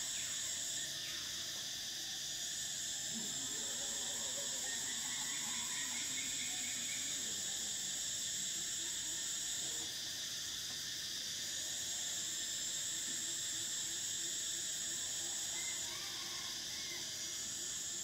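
Cicadas singing in a continuous high-pitched drone, with a lower steady buzz beneath it; the highest part drops out briefly about a second in, around ten seconds, and again near the end.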